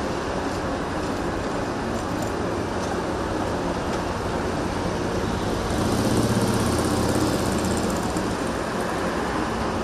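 City street traffic noise, with a motorcycle engine running louder for a while about six seconds in.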